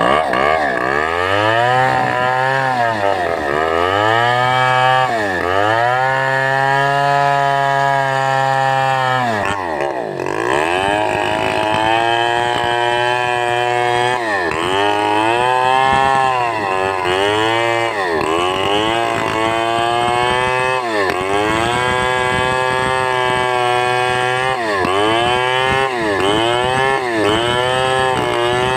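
Two-stroke chainsaw ripping a sengon log lengthwise, the engine note rising and falling over and over as the throttle is worked and the chain bites into the wood. It holds high for a few seconds, drops low briefly about a third of the way in, then dips about once a second through the second half.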